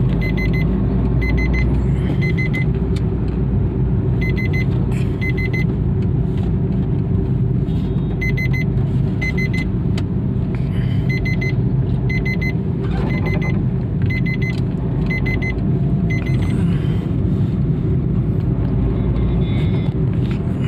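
Maruti Suzuki Dzire running with a steady low rumble, while a high-pitched warning beep sounds repeatedly in short groups of two or three. The beeping is the handbrake warning, set off because the handbrake was left pulled on.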